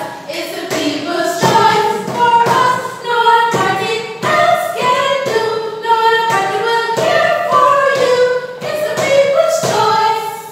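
A group of women singing together, unaccompanied, in sustained held notes.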